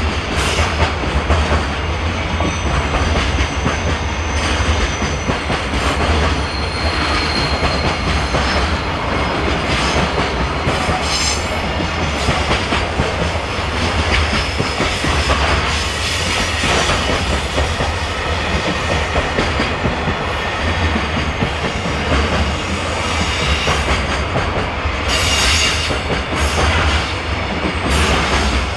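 Long freight train of loaded container flat wagons rolling steadily past close by on a curve: a loud, continuous rumble and clatter of steel wheels on rail. Faint high wheel squeals come and go now and then, the flanges rubbing the rail through the curve.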